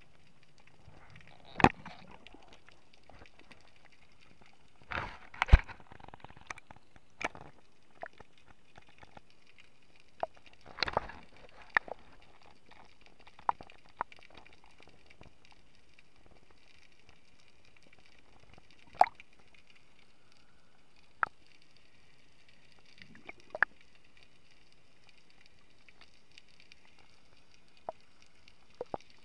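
Irregular sharp clicks and knocks of scuba gear bumping the underwater camera housing, heard through the housing over a faint steady hiss.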